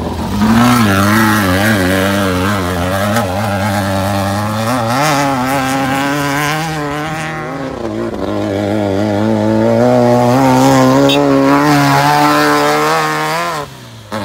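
Class 5-1600 Baja Bug race cars' air-cooled VW flat-four engines revving hard as they pass close by: the first car's engine rises and falls in pitch over the first seven seconds, then a second car's engine climbs steadily in pitch until it cuts off abruptly near the end.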